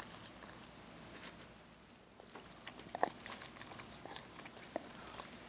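Dog gnawing on a large meaty bone: faint, irregular clicks and scrapes of teeth on bone, with a sharper click about three seconds in.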